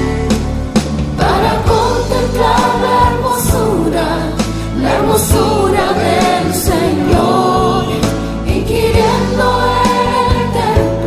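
Christian worship music: sustained instrumental backing with voices singing together, coming in about a second in.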